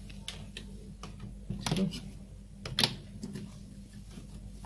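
Scattered clicks and knocks of metal parts handled on a dot matrix printer's sheet-metal frame as its carriage motor is fitted, loudest a little under 2 s in and near 3 s. A faint steady low hum runs underneath.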